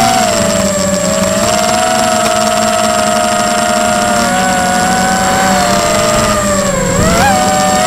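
Tarot 250 FPV racing quadcopter's motors and propellers whining steadily, heard from its own onboard camera. The pitch wavers with throttle, sagging about six and a half seconds in and jumping back up about seven seconds in.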